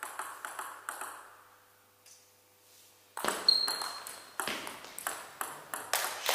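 Table tennis ball clicking off rackets and table: a few hits, a pause of about two seconds, then a fast rally of quick clicks a few times a second, with a brief shoe squeak on the hall floor early in the rally.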